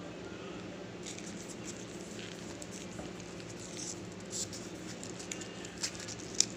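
Snacking sounds close to the microphone: small crackles and clicks starting about a second in, with a few sharper clicks near the end, over a steady low hum.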